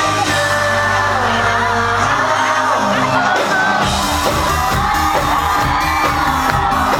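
Live pop music from a concert, a boy band singing over a band with a pulsing beat that comes in about four seconds in, with fans in the crowd whooping and singing along.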